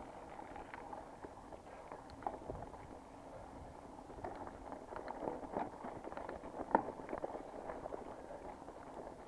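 Mountain bike rolling over a rough trail, with a steady crunch of tyres and many small irregular clicks and rattles; the sharpest knock comes a little before seven seconds in.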